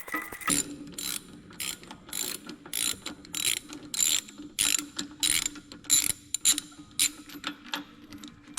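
Ratchet wrench worked back and forth, its pawl clicking in a short burst on each return stroke, a little under two strokes a second.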